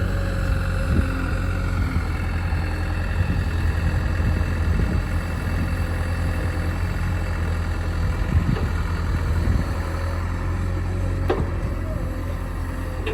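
Heavy diesel engine running steadily, with a sharp knock near the end.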